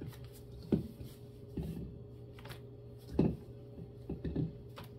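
Scattered short knocks and clunks of things being handled and set down in a kitchen, about five of them, over a steady low hum.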